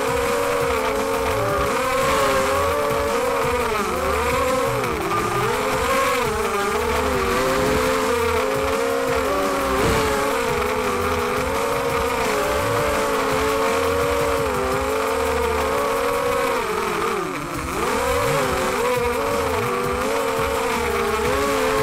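Onboard audio from an Emax 250 racing quadcopter: its four brushless motors and propellers whine steadily, the pitch rising and falling constantly with the throttle. About three quarters of the way through, the pitch dips sharply and climbs back.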